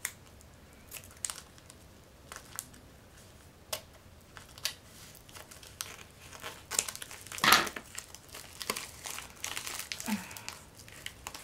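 Plastic packaging crinkling and rustling in irregular short crackles as a rolled diamond painting canvas in its plastic sleeve is handled and opened, with one louder rustle about seven and a half seconds in.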